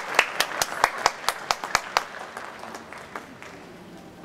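Audience applause with loud, distinct hand claps close by, about five a second, that die away after about two seconds into faint clapping.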